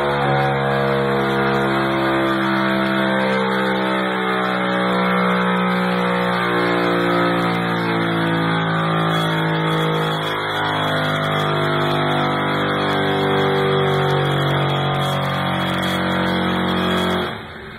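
Highly modified Kohler Command V-twin engine, bored out to 72 cubic inches, running hard at steady high speed. Its pitch sags briefly about ten seconds in and climbs back, then it cuts off abruptly near the end.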